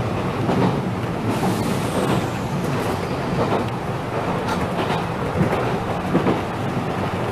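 Enshu Railway 2006F electric train running along the track, heard from the driver's cab: a steady rumble of wheels on rail with scattered clicks from rail joints.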